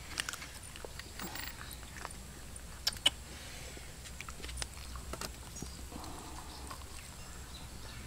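Scattered light clicks and taps as whole fish are set down and arranged in a metal wok on a bed of sticks, with two sharper clicks close together about three seconds in.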